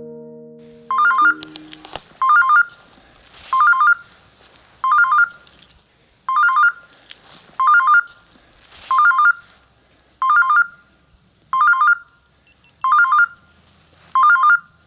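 Electronic beeper collar on a hunting dog sounding its point alarm: a short electronic chirp repeated regularly about every one and a half seconds, signalling that the dog has stopped and is standing on point. Background music fades out during the first two seconds.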